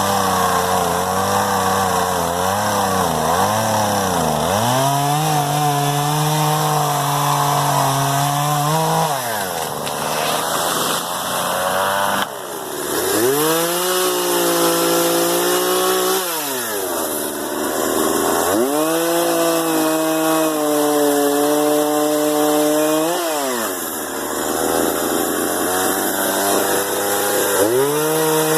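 Gas chainsaw cutting into a tree trunk to fell it, its engine running at high revs and wavering under load. Three times the throttle is let off and it drops to idle before revving back up.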